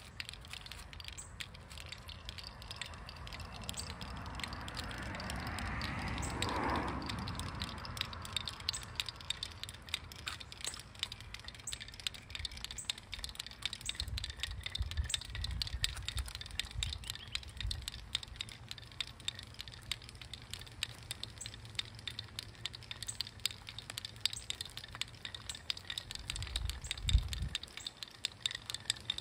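Small inertial hammer wheels rolling over asphalt, their hammers knocking in a dense, irregular run of small clicks. A broad whooshing sound swells and fades about six seconds in, and a low thump comes near the end.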